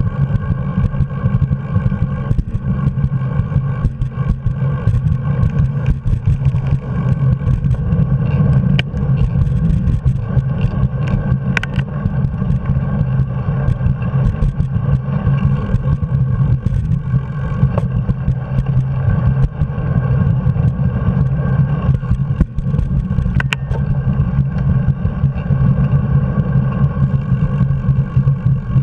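Steady, loud riding noise from a bicycle in motion, heard through a handlebar-mounted camera: a low rumble with a constant hum and a few faint ticks.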